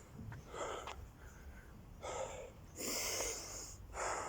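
A man breathing hard after a run of burpees: about four heavy, noisy breaths, each lasting around half a second, as he recovers from the exertion.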